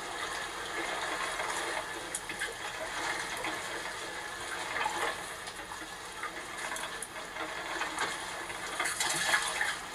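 Sea water lapping and splashing around a drifting log raft: a steady wash with small splashes scattered through it.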